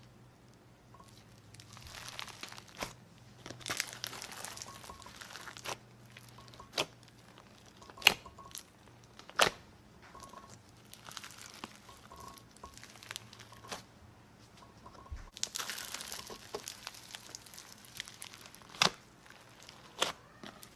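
Slime being handled, squeezed and stretched: two long stretches of crinkly crackling, with several sharp pops in between.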